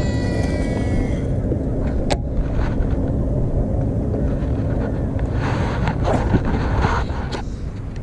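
Baitcasting reel spool whining down at the start, then a sharp click about two seconds in, over steady wind rumble on the microphone. A louder rush of noise comes between about five and a half and seven seconds in.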